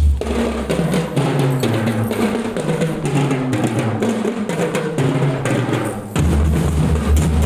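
Marching drum band playing a rhythmic piece: drums and percussion over a stepping pitched line, with the deep low drumming coming back in strongly about six seconds in.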